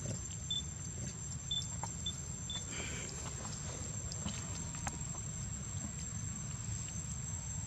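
Outdoor ambience: a steady low rumble and a constant high thin whine, with four short high chirps in the first three seconds and a brief rustle just after them.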